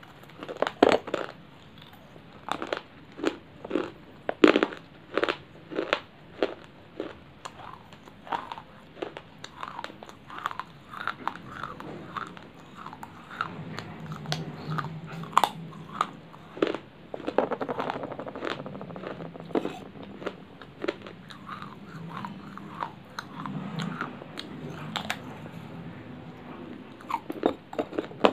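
Pieces of baked clay ('clay chips') being bitten and chewed: a long run of sharp, dry crunches, about one or two a second, turning into softer, denser chewing in the middle before sharp bites return near the end.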